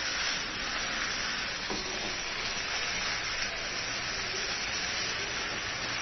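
Chicken liver, gizzard, stomach and potato pieces sizzling in a nonstick frying pan as they are stirred with a silicone spatula, a steady hiss as the spiced curry is fried down (kosha).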